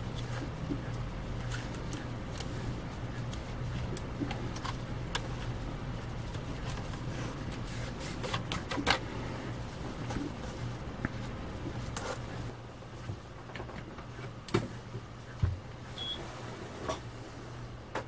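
Scattered small clicks, taps and rustles of fingers handling an LCD panel's ribbon-cable connector and circuit board while reseating the connector, over a steady low hum.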